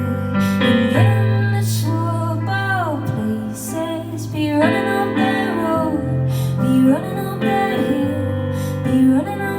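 Live music: a woman singing over guitar and long held low notes.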